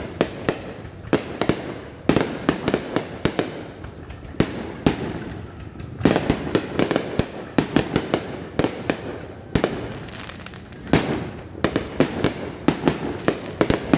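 Fireworks going off in rapid volleys of sharp bangs and crackles, with several short lulls between the volleys.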